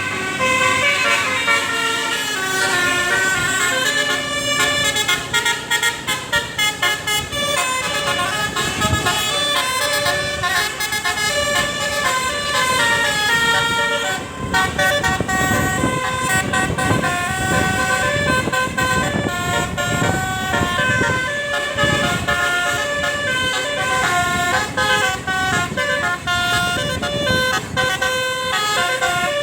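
Multi-tone telolet bus horns playing a fast melody that jumps from note to note without pause. A low rumble sounds underneath, strongest in the middle.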